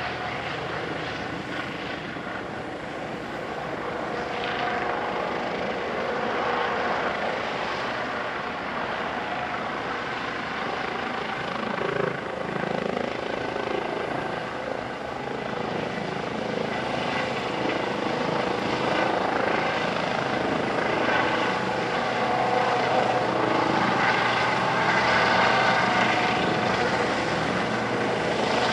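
Eurocopter EC135T2+ twin-turbine helicopter with a Fenestron ducted tail rotor hovering low during its landing, the rotor and turbine noise steady and growing gradually louder as it comes closer.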